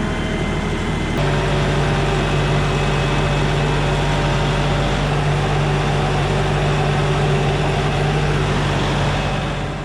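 LS compact tractor's diesel engine running steadily, its sound stepping up slightly about a second in as the engine speed changes.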